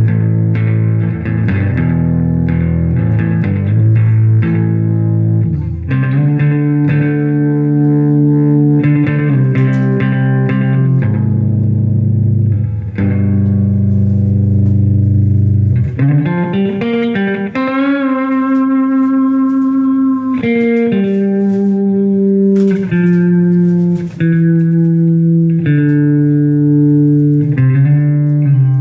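Electric guitar on its neck pickup, played clean through a 1950s US military tube projection amplifier with 6L6 power tubes and a 2x12 cabinet, with a little slapback delay. Picked notes and chords, with one note bent up about sixteen seconds in and held.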